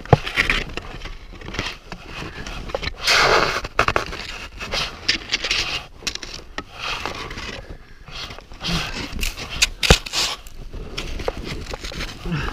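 Irregular scraping, crunching and rustling of snow as a skier caught inside a glacier crevasse shifts his skis, pole and gloved hands against the snow walls. There is a louder rushing burst about three seconds in and a few sharp knocks, one right at the start and one near ten seconds in.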